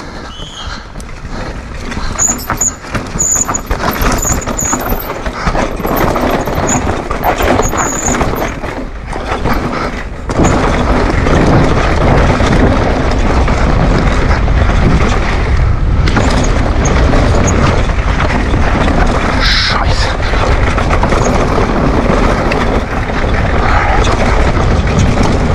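Downhill mountain bike running fast over a rough dirt forest trail, heard through an action camera: rumbling wind on the microphone mixed with the bike rattling and its tyres knocking over roots and stones. A few brief high squeaks come in the first few seconds, and the noise gets louder and steadier about ten seconds in.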